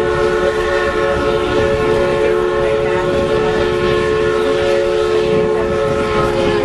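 Steam whistle of the Prairie Dog Central's 4-4-0 locomotive No. 3, sounding one long, steady blast of several pitches together, over the train's running noise.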